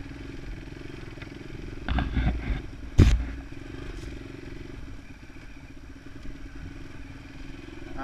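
Enduro motorcycle engine running steadily at low speed over a rough forest track, with rattling from the bike over bumps and one sharp clunk about three seconds in.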